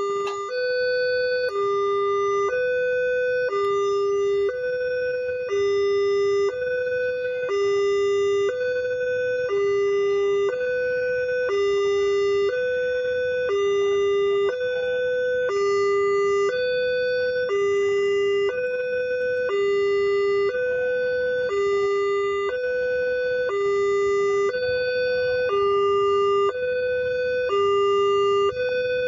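Railway level-crossing warning siren: an electronic two-tone alarm alternating steadily between a higher and a lower note, switching about once a second, sounding while the crossing is closed for an approaching train.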